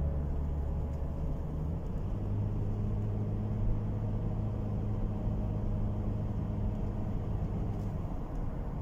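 Car driving on a highway heard from inside the cabin: steady low engine hum and tyre-road noise, the engine note shifting a little higher about two seconds in.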